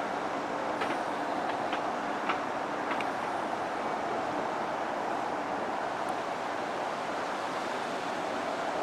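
Steady rain falling, an even hiss with a few faint ticks between about one and three seconds in.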